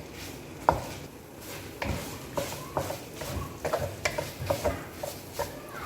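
Chicken breast pieces frying in a pan, almost cooked, with a utensil stirring them and repeatedly scraping and clicking against the pan over a soft sizzle.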